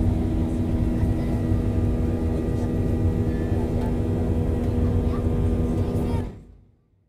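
Boeing 737 jet engines heard from inside the cabin during the climb after takeoff: a steady roar under a hum of several steady tones. It fades out about six seconds in.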